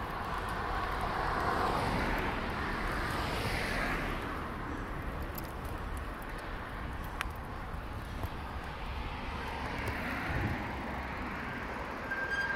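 Motor vehicles passing: a swell of road noise rises and fades about two seconds in and again around ten seconds in, over a steady low rumble, with a single sharp click about seven seconds in.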